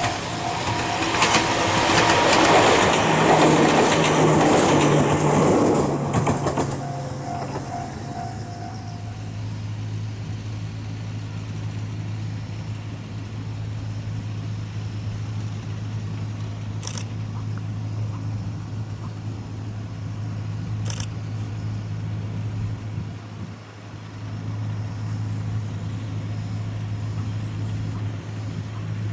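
Ohmi Railway 100-series electric train passing close by, wheels running loudly on the rails for about seven seconds, with a repeated ringing tone that stops about nine seconds in. After the train has gone a steady low hum remains, with two short clicks.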